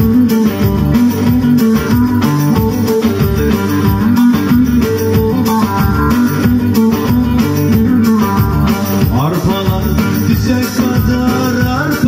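Instrumental Turkish folk music, loud and steady: a saz (bağlama) strummed with a pick over sustained accompaniment, with a few sliding notes near the end.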